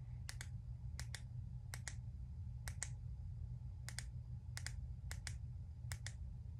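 Buttons on a handheld ring-light remote being pressed again and again, about eight presses, each a quick pair of small clicks. A steady low hum sits underneath.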